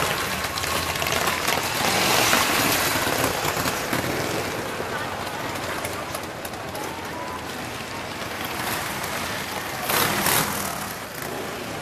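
Harley-Davidson V-twin motorcycles riding slowly past one after another, their engine sound swelling as each goes by, loudest about two seconds in and again around ten seconds in.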